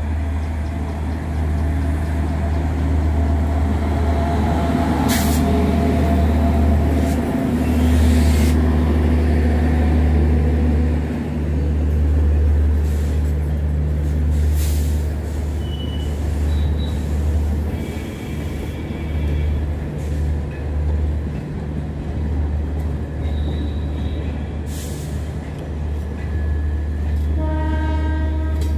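Indian Railways Garib Rath express train passing close by behind an electric locomotive: a heavy, steady low rumble with the clatter of coach wheels over rail joints. A horn sounds near the end.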